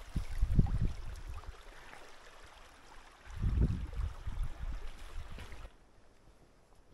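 Wind buffeting the camera microphone in irregular low gusts, strongest about half a second in and again around three and a half seconds, over a faint hiss that stops suddenly near the end.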